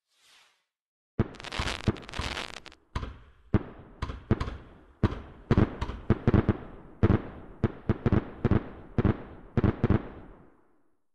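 Consumer firework firing a rapid string of shots, about two to three sharp bangs a second, each trailing off, with a denser crackling stretch at the start. The shots die away near the end.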